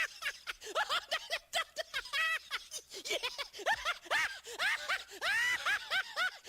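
Laughing sound effect: rapid strings of short, high-pitched notes, each rising then falling in pitch, several a second, with brief pauses between the strings.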